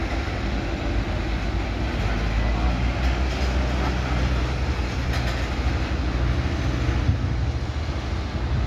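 Steady low rumble of jet aircraft engines idling, with an even hiss above it.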